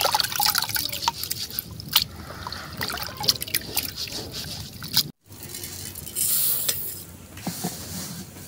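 Hands swishing sesame seeds through a basin of water: water sloshing and dripping with many small sharp splashes. It cuts off abruptly about five seconds in, followed by a softer, steady hiss.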